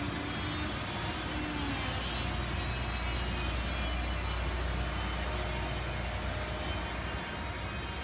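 Outdoor construction-site ambience: a steady low engine rumble from vehicles or machinery, swelling through the middle and easing off near the end, over a continuous background noise.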